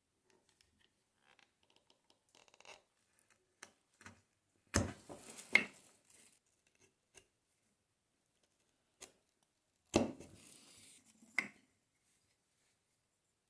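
Soft scraping of a chisel paring the inside of a small mortise in a wooden block, then sharp wooden knocks of the block and pieces against the workbench: two about five seconds in and two more near the end.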